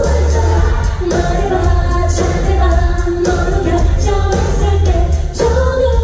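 Live pop concert performance: a woman sings into a microphone over loud amplified backing music with heavy bass, heard from the audience.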